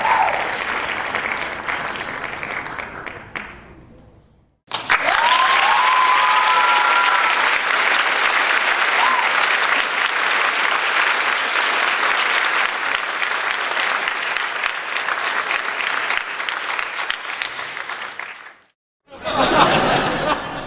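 Crowd applauding and cheering in two stretches: the first fades out about four seconds in, and after a short gap a longer, louder round starts with a few rising whistle-like calls, then cuts off sharply near the end.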